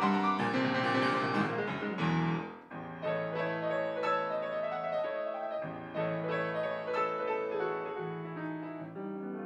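Solo grand piano played: a loud, fast passage dies away about two seconds in, then a quieter passage goes on over held low notes.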